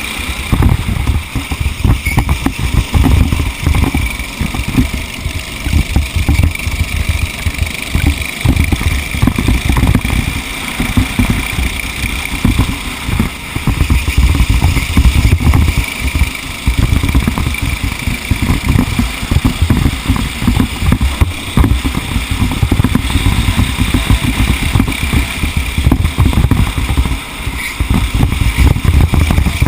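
Racing vehicle's engine running continuously under a heavy low rumble that fluctuates constantly, with a steady high tone throughout.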